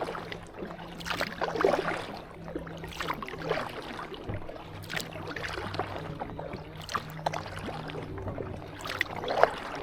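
Kayak paddle strokes dipping and splashing in lake water, roughly one every second or two, with a faint steady low hum underneath.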